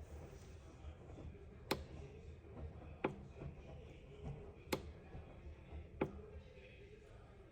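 Four sharp, separate clicks, about one every second and a half, over a faint steady low hum.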